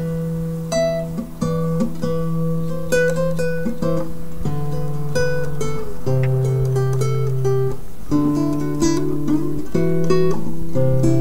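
Background music on acoustic guitar: plucked melody notes over held bass notes. It starts abruptly at the beginning.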